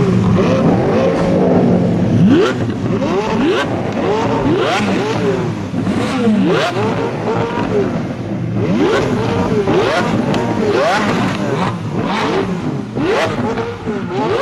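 Supercar engines (McLaren 675LT, Lamborghini Aventador, Ferrari 458 Speciale Aperta) revved hard at standstill in quick repeated blips, the rising and falling revs often overlapping, with sharp cracks from the exhausts between revs.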